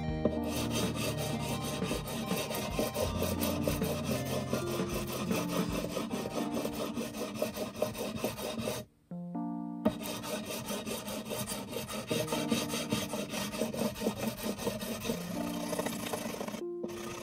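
Fret levelling: a small sanding block with 400-grit paper rubbed back and forth over the frets of an electric bass neck in quick, steady strokes, over background music. The sound cuts out for about a second near the middle.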